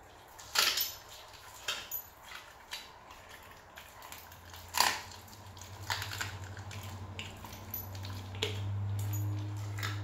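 Rottweiler chewing raw food with its mouth open: scattered wet crunches and sharp clicks of its teeth on the food. From about halfway, a low steady rumble sets in under the chewing and grows louder near the end.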